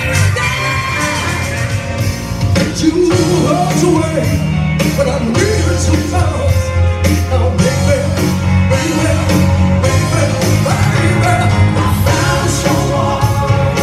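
A woman singing live into a microphone over a backing track with a steady drum beat and heavy bass, played through the PA speakers.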